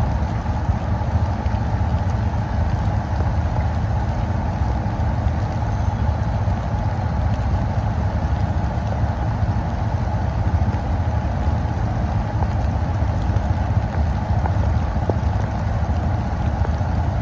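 Steady rumbling road and wind noise of a bike ride through rainy city streets, with no distinct events: a constant deep rumble under an even hiss.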